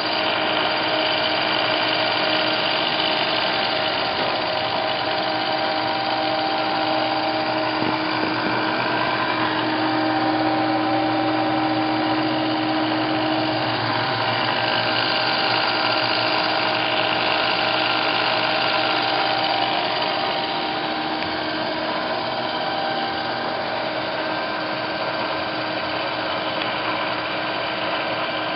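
Sharp 9" x 42" CNC vertical milling machine running: a steady motor hum with several whining tones, coming up within the first second. The tones shift slightly about 20 seconds in.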